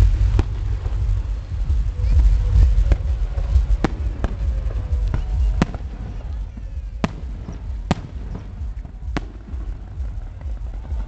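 Fireworks bursting: a series of sharp bangs, about nine, spaced irregularly over a steady low rumble.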